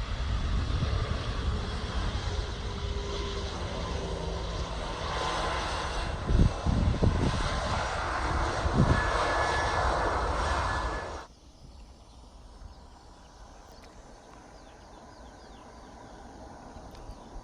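Loud aircraft engine noise with a deep rumble and a faint steady whine, plus a few low thumps of wind on the microphone; it cuts off suddenly about eleven seconds in, leaving quiet outdoor background.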